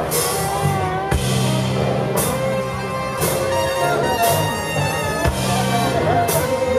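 Live jazz band playing in a second-line groove: drum kit with a cymbal crash about once a second over a held bass line, with a melody line weaving on top.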